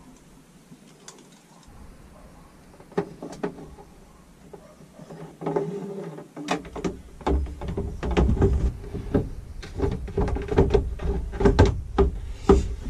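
Plastic wash basin and shower hose being handled and fitted: a few light clicks, then a busy run of knocks, taps and rubbing of hard plastic as the tap and shower fitting are pushed into the basin, loudest near the end.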